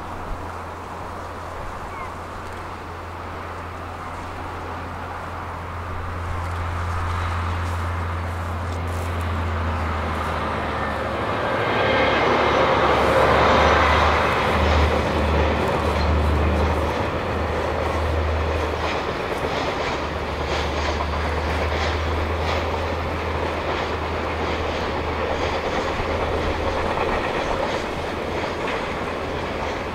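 JR Freight DF200 diesel-electric locomotive hauling a long container freight train past: the engine's low drone builds as it approaches and is loudest about halfway through, then the container wagons roll by with a steady noise of wheels on the rails.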